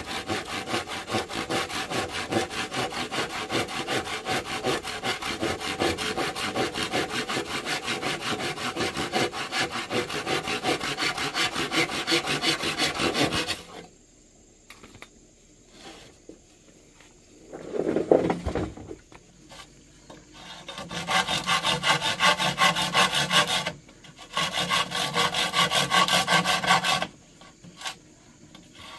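Hand saw cutting through wood in quick, steady back-and-forth strokes. It stops about halfway through, and after a short louder sound it starts again for two shorter spells.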